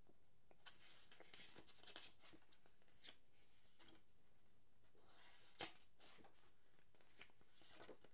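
Near silence with faint paper rustles as the pages of a CD booklet are turned and handled, and a soft tick about five and a half seconds in.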